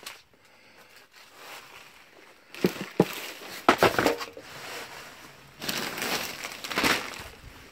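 Junk being rummaged through and shifted by hand: a few sharp knocks of hard objects knocking together near the middle, then a stretch of rustling and crinkling plastic bags.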